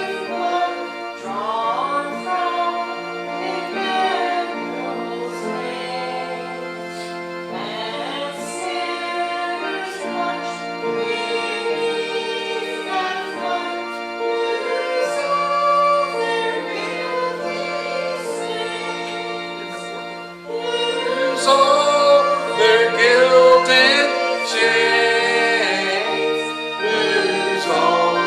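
Church congregation singing a hymn with instrumental accompaniment in long held notes, the singing growing louder about two-thirds of the way through.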